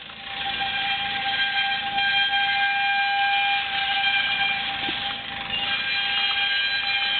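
Amateur radio HF receiver audio: hiss held to a narrow band, with several steady whistling tones from signals on the band, the loudest a single mid-pitched whistle. It swells up over the first half second.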